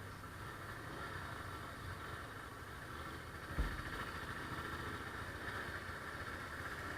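Engines running and idling in slow city traffic, heard from a motorcycle, a steady low rumble with one short low thump about three and a half seconds in.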